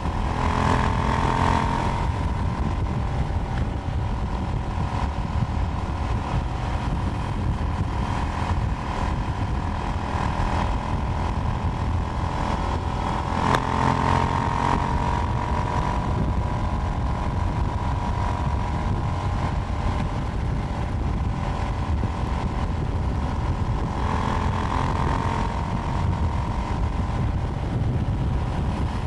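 KTM Duke 790's parallel-twin engine running while under way, its pitch rising and falling with the throttle and gear changes, swelling three times: just after the start, about halfway through and near the end. A single sharp click about halfway through.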